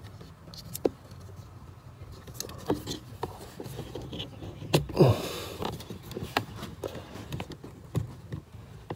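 Plastic wiring-harness connectors being handled and fitted at the accelerator pedal: scattered small clicks, taps and scrapes. About five seconds in there is a brief, louder sound that falls steeply in pitch.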